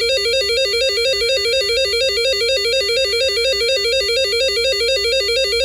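Weather radio receiver's electronic alert alarm sounding: a loud, buzzy tone warbling rapidly and evenly between two pitches, the alarm that announces an incoming NWS warning.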